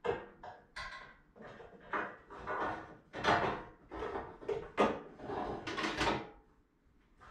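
A car's front fender panel being handled and pushed against the body as it is fitted: a run of irregular scrapes, rubs and knocks.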